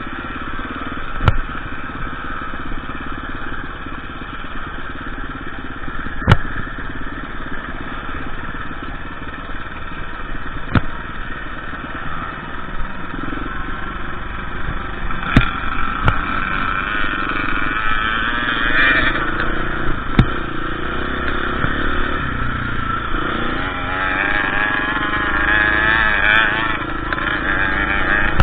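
KTM EXC 350 enduro motorcycle engine running while riding off-road, its pitch rising and falling with the throttle, busier near the end. Sharp knocks come now and then.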